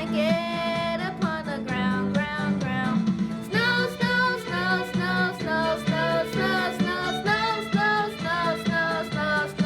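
Children singing a winter song with guitar accompaniment.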